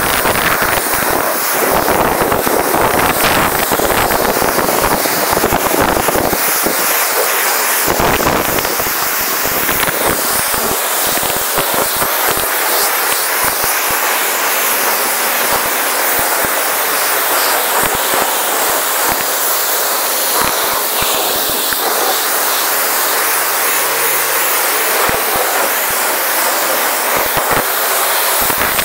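Pressure-washer gun at a self-service car wash spraying a high-pressure jet onto a car's bodywork: a steady loud hiss with crackling spatter.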